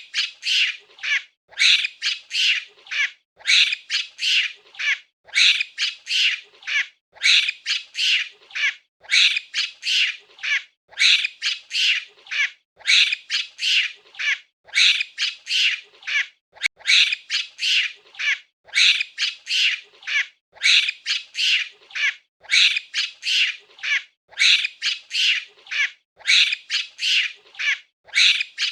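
A monkey giving shrill, high-pitched squealing calls in quick clusters of several, one cluster about every two seconds, in an even repeating pattern.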